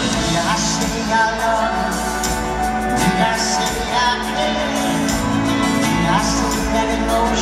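Live pop-rock band playing with a male lead vocal, heard from the seats of an arena concert.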